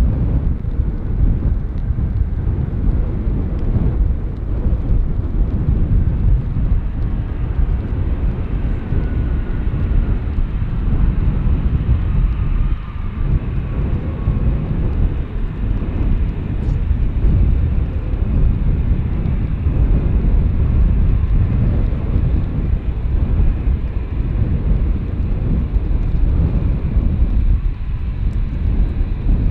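Jet airliner engines rumbling loudly and steadily as a plane passes, with a faint engine whine falling in pitch partway through.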